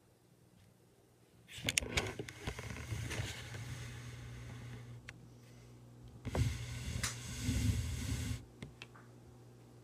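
Power wheelchair's electric drive motors running in two stretches of driving, the first about three seconds long and the second about two, with sharp clicks as each begins.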